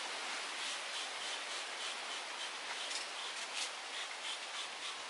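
A hand rubbing spray-on bike cleaner into a BMX frame: a steady scrubbing of skin and cleaner on the painted metal, with quick strokes at about three a second.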